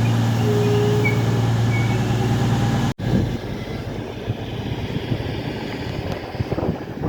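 A train's diesel engine runs with a steady low hum, then cuts off abruptly about three seconds in. What follows is a quieter rumble with wind on the microphone.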